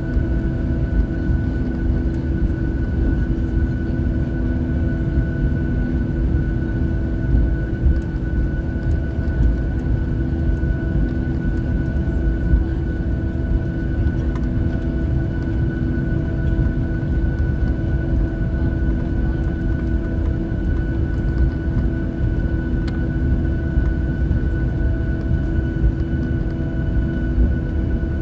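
Boeing 737-700 cabin noise while taxiing: the CFM56-7B jet engines at idle give a steady hum and whine over a low, rumbling noise.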